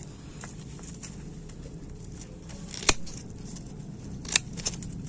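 Pruning shears snipping through thin roots of a weeping fig (Ficus benjamina). There are two sharp cuts about a second and a half apart, the first louder, with a couple of lighter clicks just after the second.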